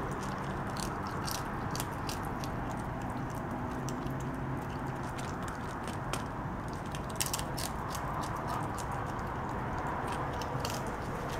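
Skunk eating cat food from a metal bowl close to the microphone: irregular crunching and clicking of chewing, with a few louder clicks about seven seconds in.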